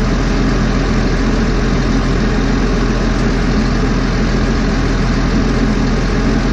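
Heavy forestry machine's diesel engine idling steadily with a constant low hum.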